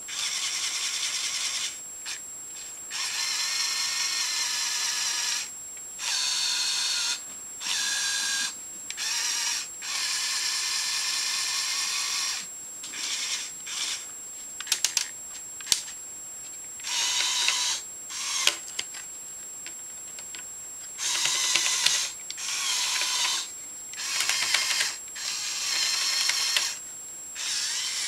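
LEGO Technic 8043 excavator's Power Functions electric motors and plastic gear trains whirring in about a dozen short bursts of one to three seconds as the arm and bucket are driven by remote control, with a quick run of sharp clicks around the middle.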